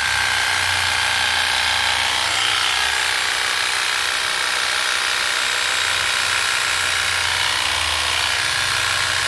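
Ruby electric hedge trimmer (110 V, 180 W, 35 cm blade) running steadily, a constant electric buzz of the motor and reciprocating blades. It runs very quietly.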